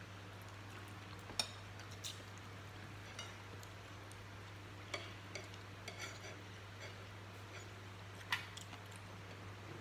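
Quiet eating at a table: a few faint, scattered clicks and taps from spoons, plates and chewing, over a steady low hum.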